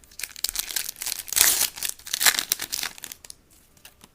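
Trading card pack wrapper being torn open and crinkled by hand, a dense crackling that is loudest in the middle and dies away about three seconds in.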